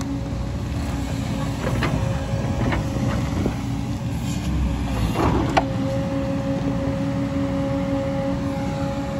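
JCB tracked excavator's diesel engine running under load with a steady hydraulic whine, the whine dropping out for a few seconds in the middle. Several sharp knocks of rock against the bucket come about two to three seconds in, then a louder rush of noise just past halfway that cuts off suddenly.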